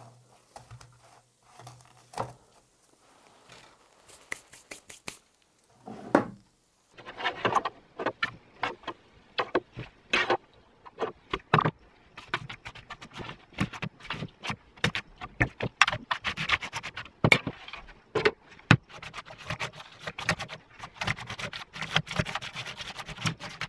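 Fried donuts being rolled and pressed in cinnamon sugar in a metal baking tray: gritty scraping and rubbing, with irregular clicks and knocks of metal trays and a wire skimmer. Quiet at first, then from about seven seconds in a busy run of scrapes and clicks.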